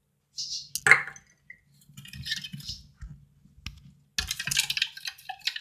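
A utensil clinking and scraping in a bowl as the glue slime mixture is stirred, with a sharp click about a second in and a denser spell of clattering near the end.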